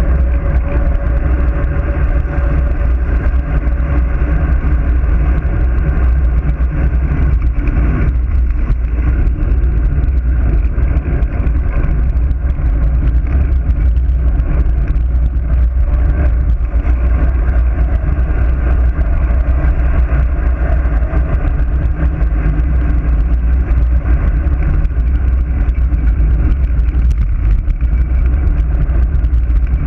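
Loud, steady wind rushing over the microphone of a handlebar-mounted GoPro on a road bike descending fast.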